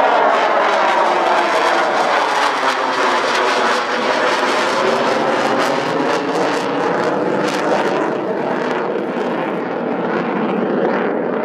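Jet noise from the two J79 turbojets of an F-4EJ Kai Phantom II fighter flying a display overhead, a continuous rush with slowly sweeping tones. It grows duller toward the end as the jet moves away.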